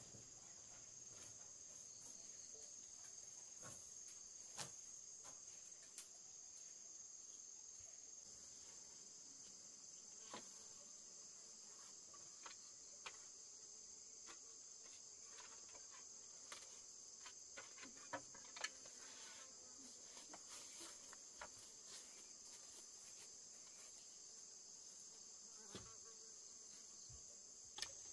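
Faint, steady high-pitched chirring of insects, with scattered sharp clicks and taps over it.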